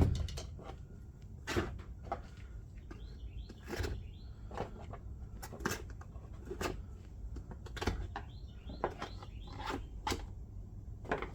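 Screwdrivers being handled: a sharp knock at the start, then irregular light clicks and knocks about once a second as the tools are picked up and set down.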